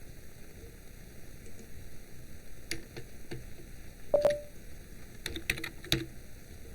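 Scattered sharp clicks of a computer mouse and keyboard over a steady hiss, the loudest about four seconds in and a quick cluster near the end.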